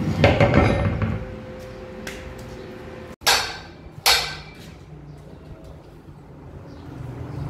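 A steel truck flywheel is set down on a concrete floor with a clattering scrape about the first second. Later come two sharp knocks with ringing, a little under a second apart.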